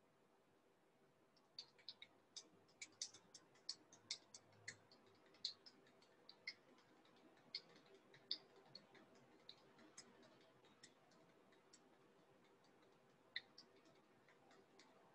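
Near silence with faint room hum and scattered small clicks at an irregular pace, thickest in the first few seconds and thinning out later.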